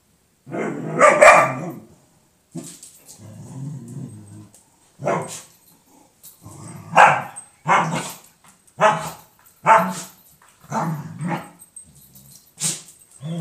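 Dog barking and growling in a standoff with a cat. A loud outburst about a second in and a low growl after it, then a string of about eight short sharp barks, roughly one a second.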